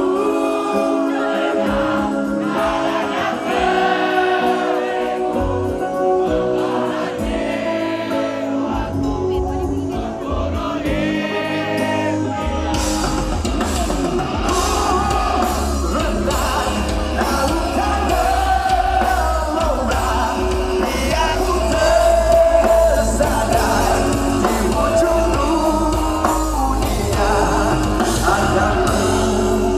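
Live band music with singing; bass and drums come in about twelve seconds in and the song fills out.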